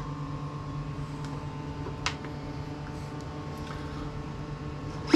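A steady machine hum made of several fixed tones, with one light click about two seconds in and a sharp knock right at the end.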